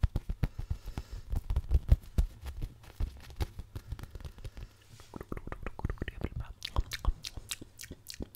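Fast, close-up scratching and tapping on a microphone's foam windscreen: a rapid run of crackling clicks and soft thumps, several a second, easing off for a moment in the middle and then quickening again.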